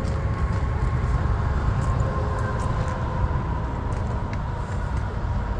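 Steady low rumble of nearby road traffic and vehicles, with a faint steady hum running through it.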